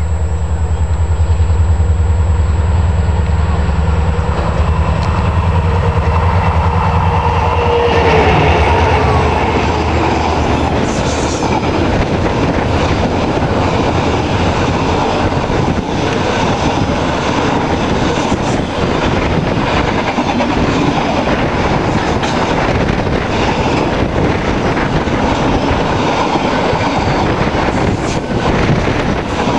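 Triple-headed freight train passing. For about the first eight seconds the three locomotives give a loud, low drone, and a tone drops in pitch as they go by. After that a long run of container wagons rattles and clicks over the rails.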